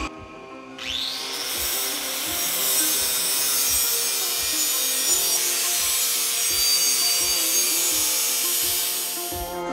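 Angle grinder winding up with a rising whine about a second in, then grinding the rim of a spinning carbon steel skillet in a steady, hissing rasp that stops just before the end, putting a bevelled edge on the rim and taking off the burr.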